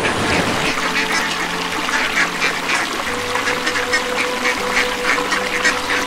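A flock of mallard ducks quacking, with many short calls overlapping in quick succession.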